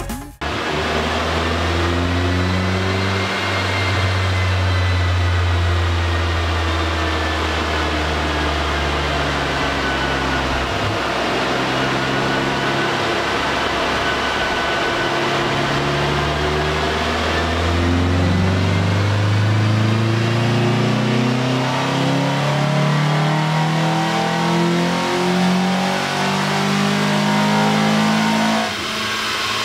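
Kia Elan's 1.8-litre TSD four-cylinder engine and exhaust running under load on a chassis dynamometer. The revs rise briefly, fall back slowly, then climb steadily in a long pull and drop off near the end.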